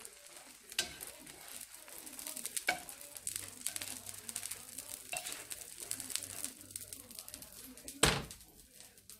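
An egg omelette sizzling and crackling in hot oil in a nonstick frying pan while a plastic slotted spatula scrapes and folds it. About eight seconds in there is one loud, sharp knock, and the crackling dies down after it.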